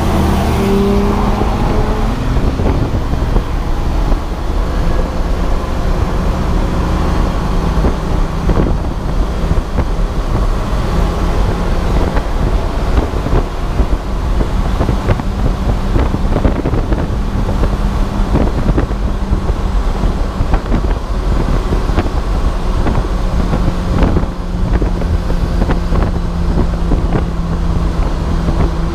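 Race car engine pulling hard on track, heard from inside the car with wind noise and frequent knocks and rattles. The revs fall in the first two seconds, then hold fairly steady.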